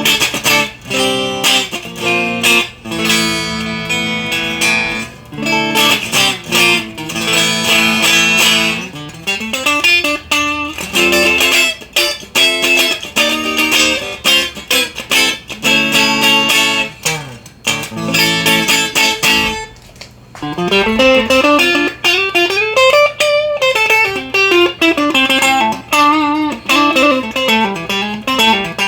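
Fender Masterbuilt Jason Smith NOS Stratocaster electric guitar played solo: chords and picked notes left to ring. About twenty seconds in comes a quick single-note run that climbs and then descends.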